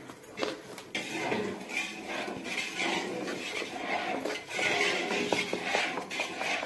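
A hand mixing wet flour batter in a steel bowl: continuous squelching and sloshing, with the fingers and batter scraping and knocking against the metal.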